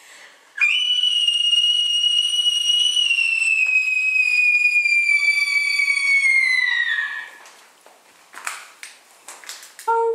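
A loud, high, shrill whistle held for about six seconds, its pitch sagging toward the end before it stops. A few light knocks follow, then a lower howl-like tone starts sliding down at the very end.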